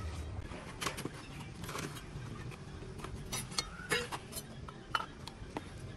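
Irregular clicks, clinks and knocks of hand tools and small containers being handled and set down: metal scissors and a knife, a plastic bottle and tubs in a plastic basket, and a wooden cutting board.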